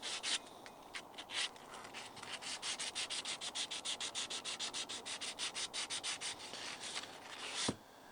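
Rapid back-and-forth hand scrubbing of rust off a cast iron pan's handle with an abrasive, about four to five strokes a second. It stops suddenly near the end with a short knock.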